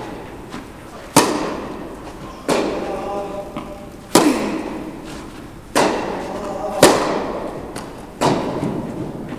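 Tennis ball struck back and forth with rackets in a rally: six sharp pops about a second and a half apart, each ringing on in the echo of a large indoor tennis hall.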